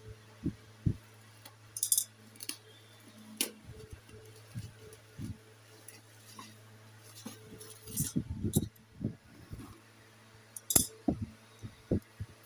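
Hands opening a cardboard delivery box wrapped in clear tape and plastic: scattered taps, scrapes and knocks on the cardboard, with a few sharp scratchy bursts about two seconds in and near the end, over a steady low hum.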